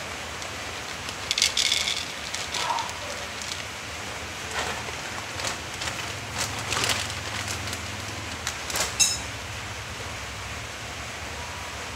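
Dry cat kibble rattling out of a plastic bag onto a plastic tray about a second and a half in, then a cat crunching the kibble in irregular crisp crunches.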